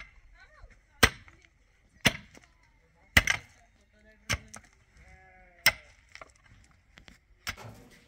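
Pickaxe striking hard, stony soil, six sharp blows about a second apart, with a faint bleating call twice between them.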